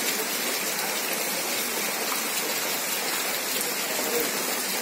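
Heavy rain falling steadily on a waterlogged street, a dense, even hiss.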